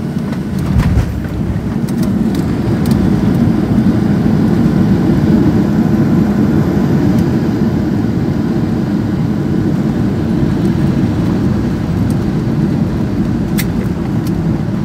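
Jet airliner cabin noise as the plane rolls along the runway: a steady low rumble of engines and wheels, with a single thump about a second in.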